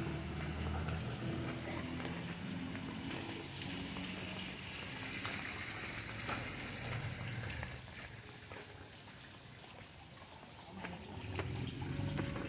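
Water from a small fountain jet splashing into a garden pond, a steady hiss that is loudest for a few seconds in the middle.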